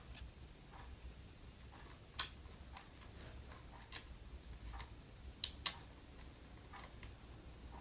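Scattered small clicks and ticks of a screwdriver and metal mounting screws being worked into a GPU water block's back plate, the sharpest click about two seconds in and a quick pair later on.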